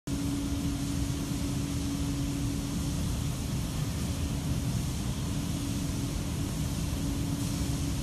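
PET bottle recycling washing line running: steady machine noise with a low rumble and a constant motor hum.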